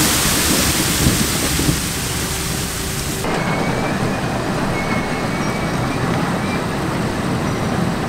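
Onions pouring off the tailgate of a tipping trailer into a receiving hopper, a dense rush of noise. About three seconds in it gives way to the steadier, lower noise of the tipping trailer and the hopper's conveyors running.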